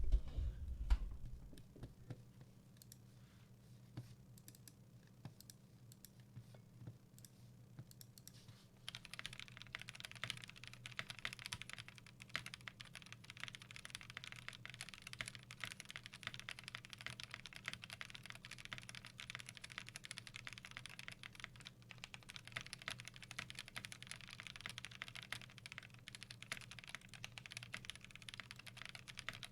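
Typing on a custom KBD8X mk2 mechanical keyboard with lubed Gazzew Boba LT switches, a polycarbonate plate and PBT keycaps. A couple of low thumps come near the start, then scattered single keystrokes, then fast continuous typing from about nine seconds in.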